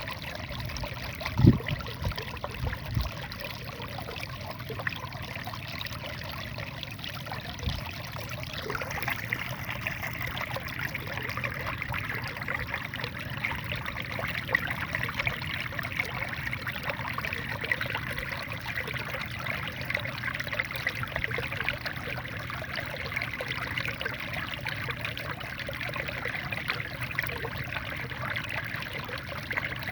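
Small waterfall in a rice field, water pouring and trickling steadily. A sharp low thump comes about a second and a half in, with a few fainter knocks soon after.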